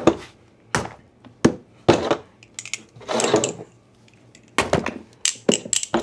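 Butterfly knife blades stabbed down into a cardboard box on a wooden table: a series of sharp thuds, with one longer scraping stab about three seconds in and several quick ones close together near the end.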